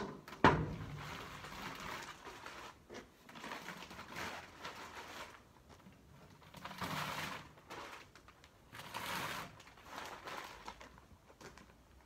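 A sharp knock about half a second in, then repeated bouts of plastic rustling and crinkling as balls of baler twine are handled, unwrapped from their plastic and set into the baler's twine box.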